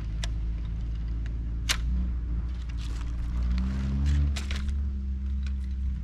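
Pole segments of a folding camp chair clicking as they are fitted together: a few sharp clicks. Under them runs a steady low engine rumble that swells and shifts in pitch about four seconds in and is the loudest sound.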